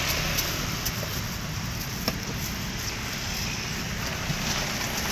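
Steady street traffic noise with a few light clicks from a knife cutting crystal guava.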